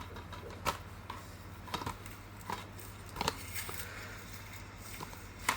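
A plastic DVD case being handled and opened: several scattered sharp clicks and light rustling over a low steady hum.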